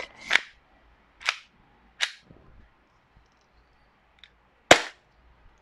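Airsoft Glock 17 pistol firing four single shots, unevenly spaced: three within the first two seconds or so, then a louder one near the end.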